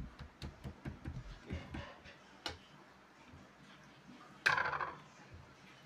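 Hands and a kitchen knife handling raw butterflied chicken breasts on a woven placemat: light taps and clicks, then one louder, brief scraping sound about four and a half seconds in.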